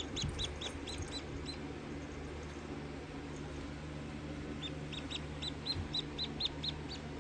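Newly hatched Rhode Island Red chick peeping: a quick run of short, high peeps at the start, then a longer run of about ten peeps near the end, over a low steady hum.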